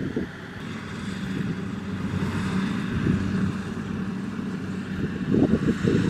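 Kubota DC-70 Plus rice combine harvester running steadily as it harvests: a diesel engine hum with a constant low tone, growing louder and rougher about five seconds in.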